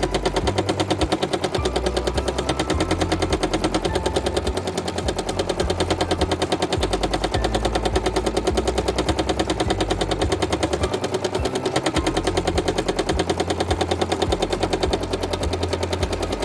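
Domestic sewing machine free-motion quilting with a hopping foot, running fast at a steady speed: a rapid, even rattle of needle strokes and foot taps, the pace set for small, smooth stitches.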